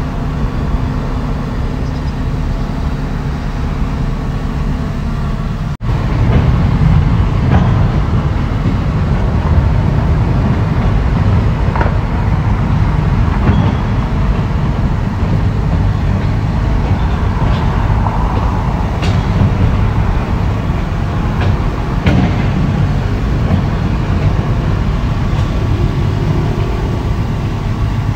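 Heavy diesel earthmoving machinery running steadily. About six seconds in, a sudden break gives way to a louder, rougher rumble, with a few scattered knocks.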